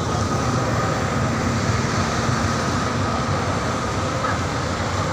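Small motorbike engines running steadily at low speed, with road noise and a faint steady whine.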